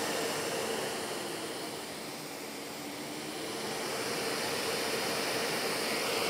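Philips Turbo Compact TC535 canister vacuum cleaner running steadily with a steady motor whine over rushing air. It is super smooth, and it dips slightly in level about two seconds in before coming back up.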